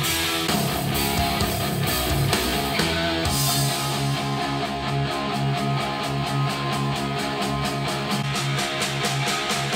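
Guitar-led rock music played back through a pair of compact studio monitors and picked up by a microphone in the room. It plays first through Presonus Eris E3.5 monitors, then switches about three seconds in to JBL One Series 104 monitors, and the sound of the track changes at the switch.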